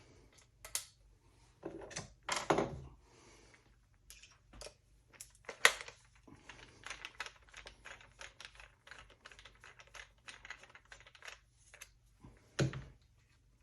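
Metal shotgun parts and tools being handled on a work surface during a Remington 870 teardown: scattered clicks and knocks, a few of them louder, with a run of quick small clicks in the middle.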